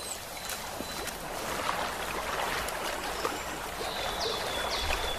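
Water splashing and trickling around a swimming beaver. Near the end a bird calls in a run of short falling whistled notes, about two a second.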